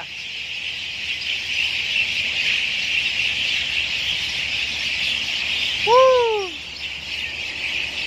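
A large flock of roosting birds chattering in the trees, a dense, steady high twittering. One louder rising-and-falling call stands out about six seconds in.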